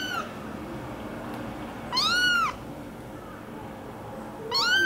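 American Curl kitten mewing: short, high-pitched mews that rise and fall in pitch, one ending just as the sound begins, one about two seconds in and another starting near the end.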